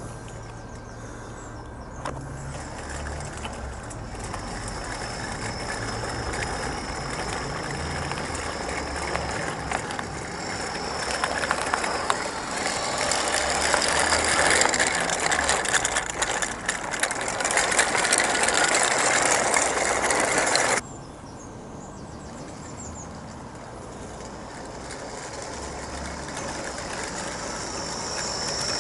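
Model garden-railway train of wooden skip wagons running on 32 mm gauge track: the wheels clatter on the rails beneath the low whirr of the locomotive's electric gearhead motor. The sound grows louder as the train comes close and passes, then cuts off suddenly about 21 seconds in. After that a quieter running sound builds again as the locomotive approaches.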